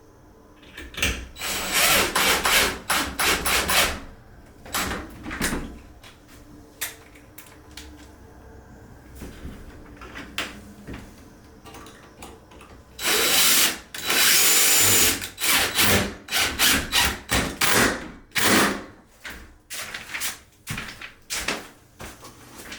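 Power drill driving screws to fasten the door jamb, run in repeated trigger bursts: longer runs about a second in and again around the middle, then a string of short bursts towards the end.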